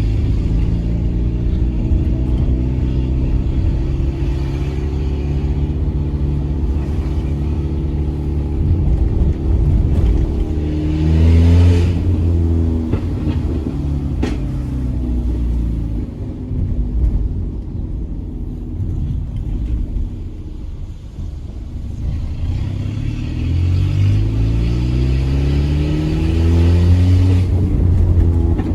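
Peugeot 206 1.4 8V four-cylinder engine with a straight-through exhaust and no catalytic converter, driven on the street. It pulls up to a peak about 11 seconds in, eases off and runs lower for several seconds, then climbs again to a second peak near the end before dropping.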